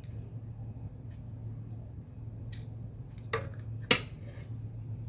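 A few light clinks of a utensil against a soup bowl, three in all, the loudest about four seconds in, over a steady low hum.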